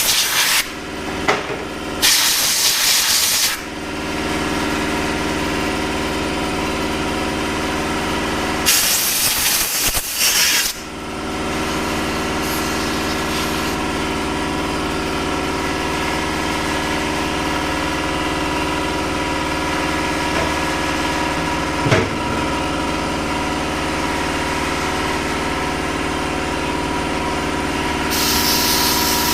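Compressed air blown at a lawn-tractor carburetor, blowing the dirt off: several hard hissing blasts of a second or two each near the start and around 9 to 11 s, and a thinner hiss near the end, over a steady machine hum.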